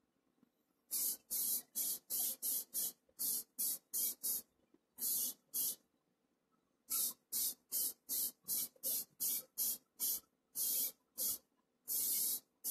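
Spray paint being applied to a diecast model's base in about two dozen short, quick bursts of hissing spray, with a brief pause about halfway through.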